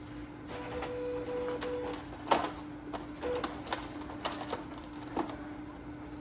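Epson L1800 inkjet printer starting a test print after a head cleaning. A brief motor whine, then a series of mechanical clicks and clunks from the paper feed and print-head carriage, the loudest about two seconds in.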